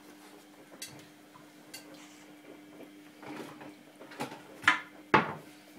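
Scattered light clicks and knocks of hard objects, with two much louder clattering knocks about half a second apart near the end, over a faint steady hum.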